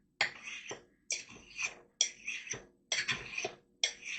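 Thin paring-knife blade drawn along the ceramic rods of a Spyderco triangle sharpener: about five even scraping strokes, roughly one a second.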